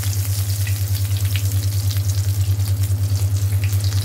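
Breadcrumb-coated bread pizza puffs deep-frying in well-heated oil in a pan: a steady bubbling, crackling sizzle. Underneath is a loud, steady low hum.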